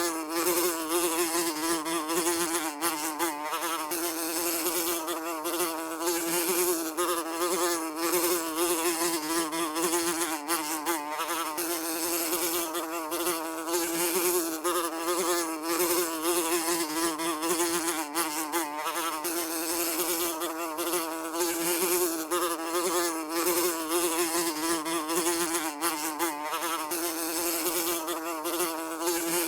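A fly buzzing continuously, one steady buzz whose pitch wavers slightly up and down, over a constant hiss.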